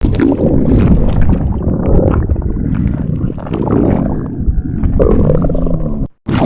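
Loud human stomach growling: continuous gurgling with drawn-out rising and falling tones among it. It drops out briefly near the end, at an edit, and starts again.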